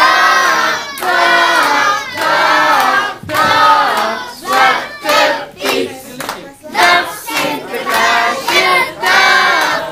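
A group of children shouting together in unison, in loud repeated calls about a second apart.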